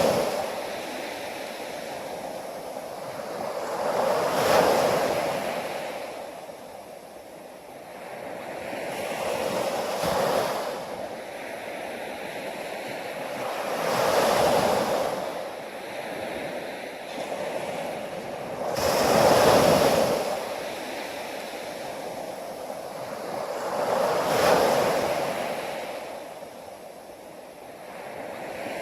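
Ocean waves breaking in a steady rhythm: a surge of surf about every five seconds that swells up and fades away before the next.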